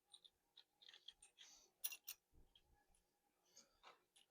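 Faint light clicks and small scrapes from engine parts being handled, with two sharper clicks about two seconds in and near silence between.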